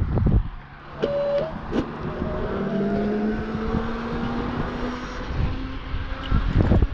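A motor's hum, climbing slowly in pitch over several seconds, with gusts of wind on the microphone at the start and near the end.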